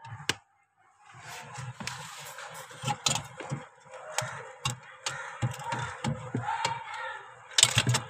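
Irregular knocks, clicks and cracks of a hand working at ice packed under a refrigerator's evaporator coils, breaking it loose to clear a defrost drain blocked by debris.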